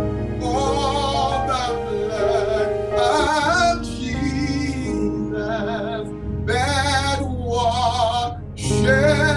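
A man singing a slow gospel song in long, wavering held notes over steady held chords of accompaniment.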